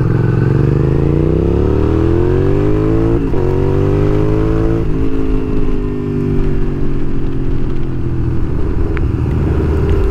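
Suzuki SV650's 645 cc V-twin engine accelerating on the road. Its pitch climbs, breaks briefly at an upshift about three seconds in, climbs again, and breaks at a second shift near five seconds. After that it holds steadier and eases off slightly.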